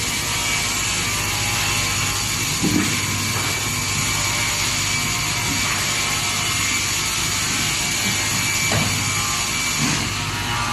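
Multi-blade log saw running steadily, a dense machine noise with a low hum and a high whine that cuts out near the end, with a few knocks about three and nine seconds in.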